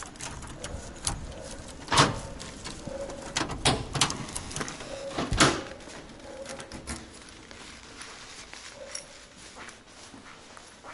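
A key working a door lock and a heavy front door being opened and pushed shut: a run of sharp clicks and knocks, the loudest about two, four and five and a half seconds in, then quieter small ticks.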